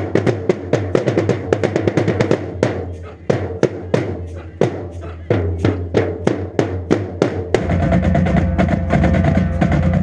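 Marching band percussion playing rapid snare and bass drum patterns. About three-quarters of the way in, the band comes in with a held, low-pitched chord over the drums.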